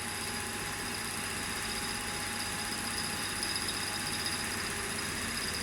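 KANTO PM-3477 pantograph engraving machine's motor running steadily, an even hum with constant high-pitched tones.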